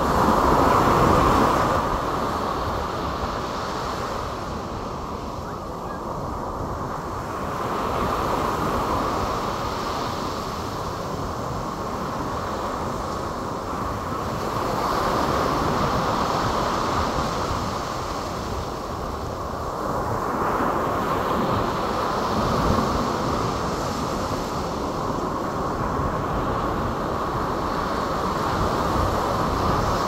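Gulf of Mexico surf washing onto a beach, a steady wash of water that swells and eases about every seven seconds. Wind rumbles on the microphone underneath.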